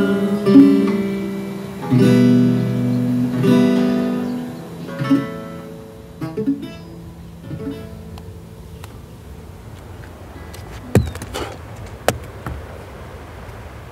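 Acoustic guitar chords strummed and left to ring, dying away about six seconds in. A steady hiss follows, with a few sharp clicks near the end.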